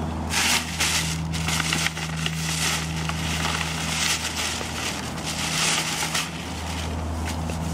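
Irregular crunching, rustling noises in bursts for most of the clip, over a steady low hum.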